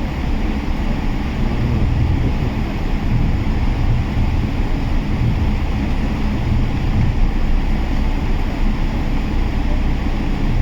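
Steady cabin noise of a Boeing 777-300 airliner in flight: its jet engines and the rush of air past the fuselage, heard inside the cabin as a constant low rumble with a hiss above it.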